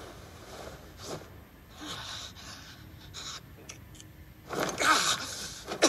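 Slap-fight sound effects: short breathy whooshes and hits, then the loudest event near the end, a man's pained cry over a burst of noise, followed by a couple of sharp thuds.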